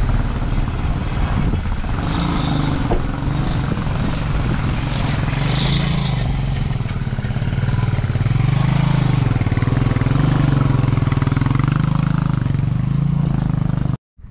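Vehicle engine running on a rough, rocky mountain track, its pitch rising and falling as the revs change over the uneven ground. It cuts off abruptly near the end.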